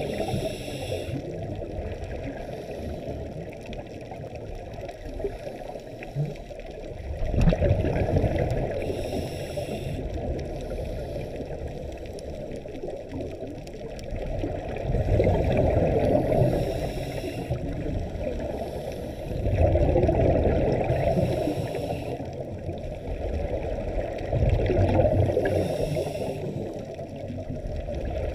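Scuba divers breathing through their regulators underwater, heard through the camera's housing: a steady muffled rush with louder bursts of exhaled bubbles every four to six seconds and short hisses of inhaling between them.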